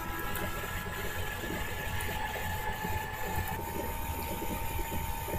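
Steady machine hum with a low rumble and a thin, steady whine; the whine shifts slightly in pitch about three and a half seconds in.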